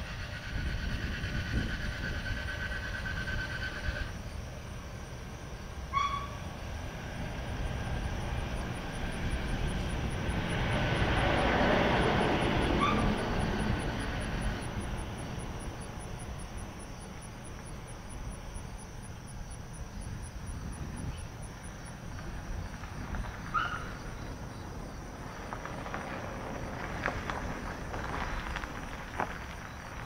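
Federal Signal STH-10 siren with a Valley motor, in the last half-minute of its coast-down after a 2-minute alert, its rotor turning slowly with a steady low rumble. A louder swell, like a passing vehicle, rises and fades about twelve seconds in.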